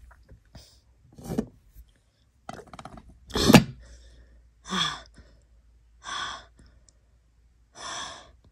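A woman sighing and breathing out hard about five times, a second or more apart, over a pot of hot water during a steam inhalation. A couple of the breaths carry a low groan, the loudest about halfway through, as the hot steam stings.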